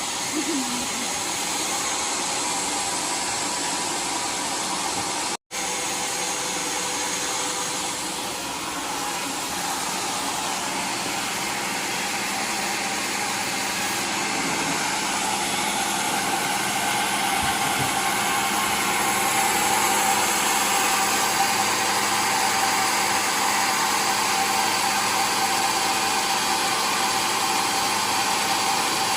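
Homemade sawmill running steadily while sawing waru wood into planks, a constant mechanical noise with a steady whine through it. The sound drops out for an instant about five seconds in, and grows a little louder past the middle.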